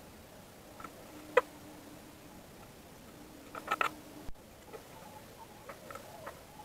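Metal skewers clicking against the wire grate of a small charcoal grill as kebab skewers are laid on and shifted: a sharp click about a second in, a quick cluster of clicks around the middle, and lighter ticks near the end.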